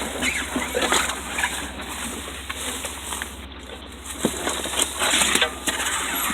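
Tyres crunching and popping over rocks and loose stone as an off-road vehicle crawls slowly down a rocky trail: irregular cracks and crunches, with a louder, longer scrape about five seconds in.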